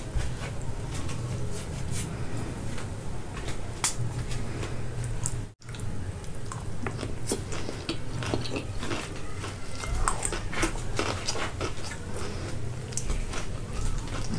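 A person eating noodles: close-up chewing and slurping with many small clicks over a steady low hum, broken by a momentary dropout about five and a half seconds in.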